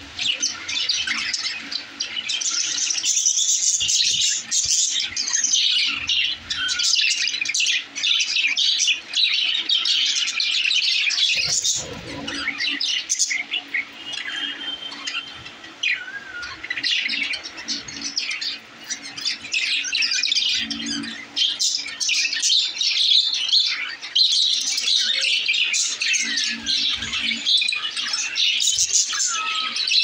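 A group of budgerigars chattering continuously: a dense, unbroken mix of warbling, chirps and short squawks.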